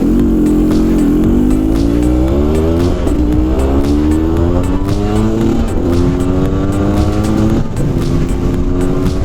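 Honda CRM250R's two-stroke single-cylinder engine accelerating through the gears while ridden. The pitch climbs and drops back three times as it shifts up, then holds fairly steady near the end.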